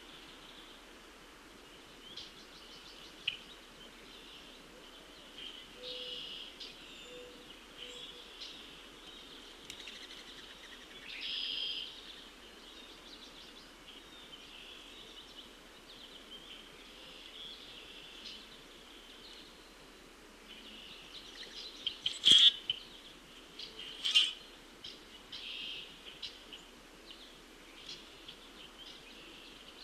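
Wild birds singing and chirping in a continuous chorus, with a few sharper, louder calls about two-thirds of the way through.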